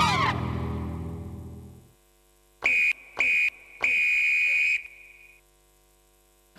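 A music sting's last chord dies away over about two seconds. Then come three electronic buzzer beeps of one high pitch, two short and one longer, as a TV sports ident sound effect.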